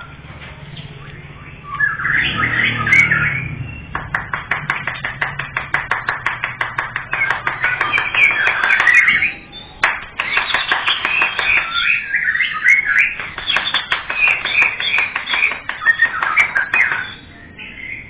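Caged songbird singing: a burst of chirps, then long runs of rapid repeated notes, several a second, mixed with bright chirping phrases, with short pauses about ten seconds in and near the end.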